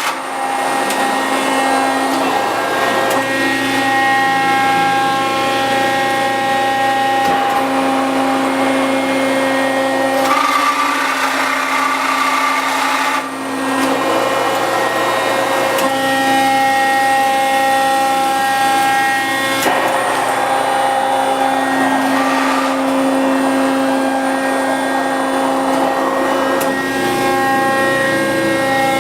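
Hydraulic pump and 5 hp electric motor of a 1999 Accurpress 60-ton CNC hydraulic press brake running with a steady whine. Its tones and noise shift every few seconds as the load changes.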